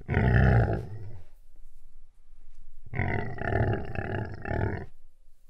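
Big cat roaring: one long roar at the start and a second, longer one about three seconds in.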